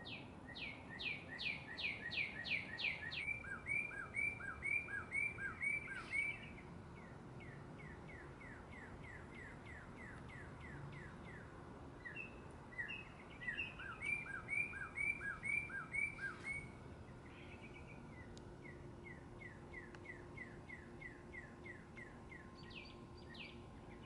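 A male northern cardinal sings two loud song phrases, one at the start and one about 13 seconds in. Each is a run of clear whistles slurring down, then a faster series of short repeated notes. Fainter repeated whistled notes fill the gaps between the phrases.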